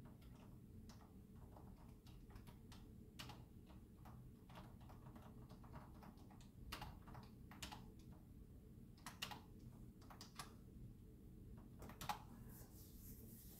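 Typing on a computer keyboard: faint, irregular key clicks, with a few harder keystrokes in the second half.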